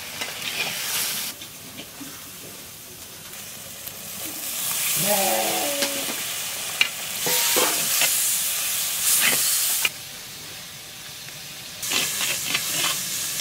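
Onions and ground spices frying in mustard oil in a clay pot, with a metal spatula stirring and scraping against the clay. The sizzle grows louder about four seconds in, drops about ten seconds in, and picks up again near the end.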